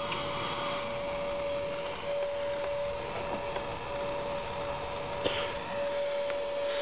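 Audio-frequency water heater built around a multilayer Tesla-style coil, running with a steady pitched hum over a hiss. A short click comes about five seconds in.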